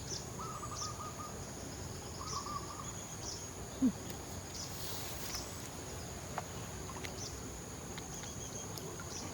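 Outdoor ambience: a steady high insect drone with a few short bird calls, two warbled phrases early on, and one brief low sound about four seconds in.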